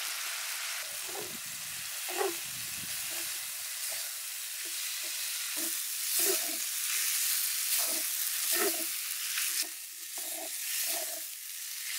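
Chitterlings frying in a hot stainless-steel wok with a steady sizzle, while a wooden spatula scrapes and knocks against the pan as they are stirred. The spatula strokes come more often in the second half.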